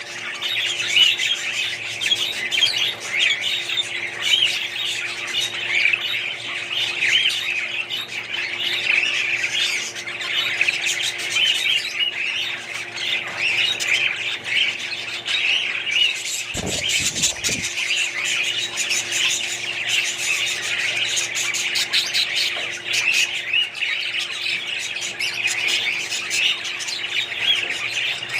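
A flock of caged budgerigars chattering and warbling continuously, many birds at once, with a faint steady hum underneath. A brief low thump comes about two-thirds of the way through.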